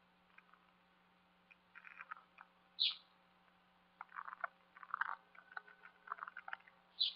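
Small animals calling: a short high chirp about every four seconds and bursts of rapid, croak-like pulsing calls, over a steady low hum.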